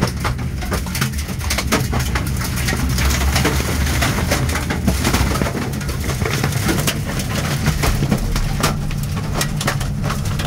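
Tornado wind roaring around a locomotive cab, heard from inside, with a rapid, irregular clatter of flying debris striking the cab and its windows.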